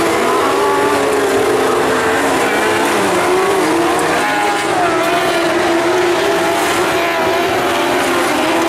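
Several midget-class open-wheel speedway race cars running at racing revs together, with a number of engine notes rising and falling at once.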